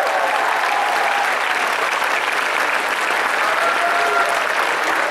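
Large audience applauding steadily, with a brief voice over it about three and a half seconds in.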